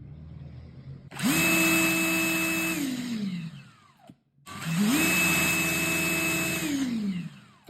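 Cordless drill run twice in short bursts: each time the motor spins up quickly, holds a steady whine for about a second and a half, then winds down in falling pitch as the chuck coasts to a stop.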